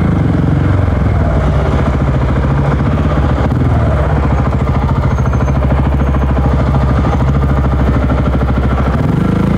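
Supermoto motorcycle engine running steadily at low revs in slow traffic, its revs rising slightly near the end.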